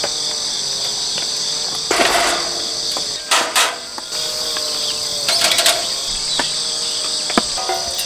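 Steady chorus of crickets and other insects chirring in the woods, a high continuous trill, with a few faint clicks and brief rustles over it.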